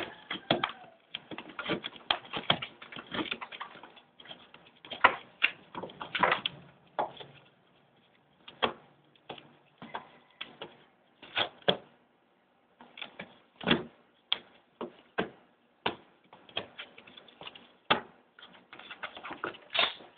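Chihuahua digging and scrabbling in the clothes inside a cardboard box: irregular scratches, rustles and knocks, with a couple of short pauses.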